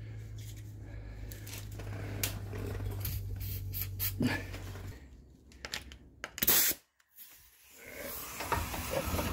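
Aerosol spray lube being sprayed onto a tie rod end nut, with a short loud hiss about six and a half seconds in, amid small handling clicks of the can against the parts. A low steady hum runs underneath and stops about five seconds in.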